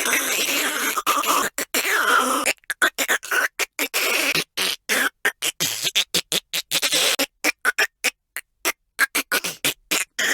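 A voice making choking and gagging noises, chopped into many short stuttering fragments with sudden silent gaps between them.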